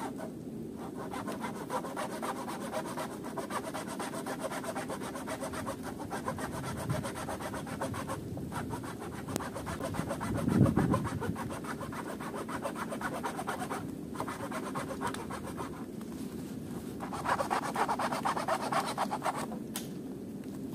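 Hand saw cutting through a thin wooden pole, in rhythmic back-and-forth strokes with two short pauses. About halfway through there is one louder thump, and near the end the strokes grow louder before stopping.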